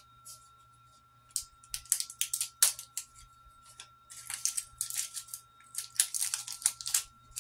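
AA batteries and a trail camera's plastic battery tray clicking and rattling as they are handled, in several quick clusters of sharp clicks, over a faint steady hum.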